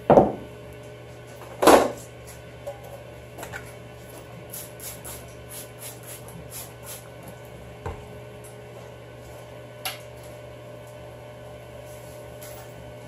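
Items and bins being handled in a refrigerator door: two loud knocks near the start, then a run of quick light wiping strokes and a few small clicks, over a steady low hum.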